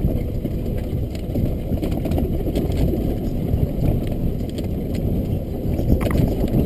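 Golf cart driving across a grass field: a steady low rumble from the cart and its tyres.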